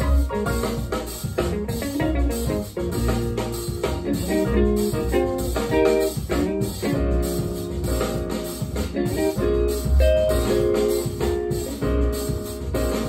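Music with guitar and drums played through a pair of Celef LS8 two-way bookshelf speakers, picked up by a microphone in the listening room.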